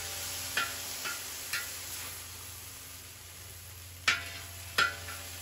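Beef strips sizzling in a cast iron wok while a metal spatula stirs them, scraping and clinking against the pan about four times, most sharply near the end.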